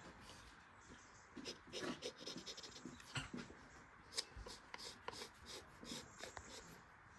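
Faint, irregular scratching and light clicks, several a second, of hand work on a small object.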